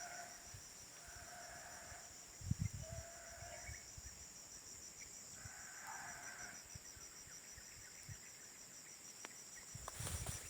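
A steady, finely pulsing high insect trill runs throughout. Over it, an unidentified animal gives a repeated call of about a second each time, four times in the first seven seconds: this is the strange sound heard in the oil palm plantation. A few low thumps of handling are heard too.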